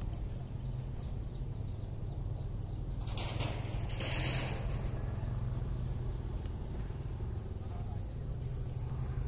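Outdoor background noise: a steady low hum with a brief rush of noise about three seconds in that fades by about four and a half seconds.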